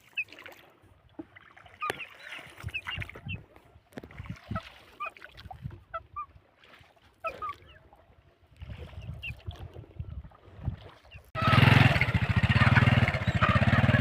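Ducks or other waterfowl calling in short scattered calls. A small engine then comes in low about two-thirds through and runs loudly with a rapid beat from near the end.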